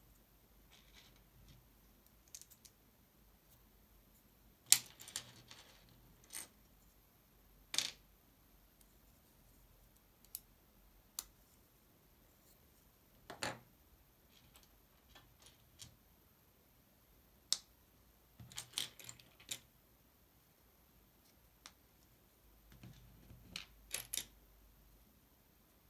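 Plastic LEGO bricks being pressed together and picked from a pile of loose parts on a table: scattered sharp clicks and light clatters at irregular intervals, a few of them louder snaps.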